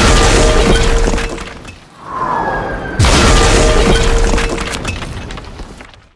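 Meteor impact sound effect: a heavy crash with shattering and falling debris that fades over about two seconds. A rushing whoosh follows, and then the same crash comes again about three seconds in and fades away.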